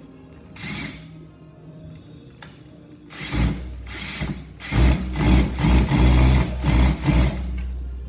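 Power drill run in a series of short bursts, about two to three a second, while fastening during a dishwasher install.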